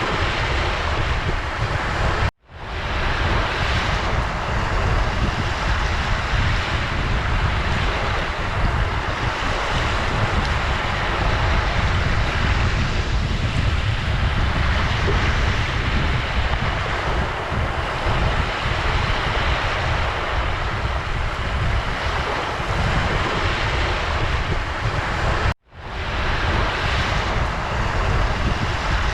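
Ocean surf: a steady, dense rush of breaking and washing waves with a deep rumble underneath. Twice the sound cuts out abruptly to silence and fades back in within about a second.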